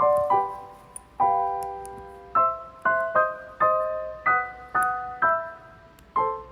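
Gentle solo piano music: single notes and small chords struck one after another, each left to ring and fade.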